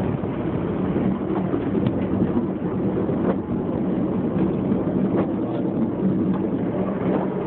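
Plow truck's engine running steadily with a constant low hum and a rushing noise, heard from inside the cab.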